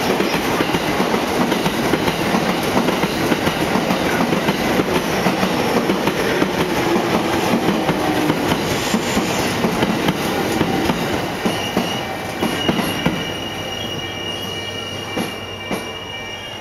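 An electric train running past close by, its wheels clacking over the rail joints. About two-thirds of the way through it fades, and a high, steady wheel squeal comes in.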